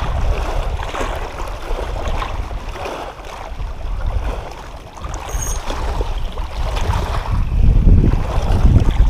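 Wind buffeting the microphone, with small waves lapping at a rocky lake shore; the rumble grows louder near the end.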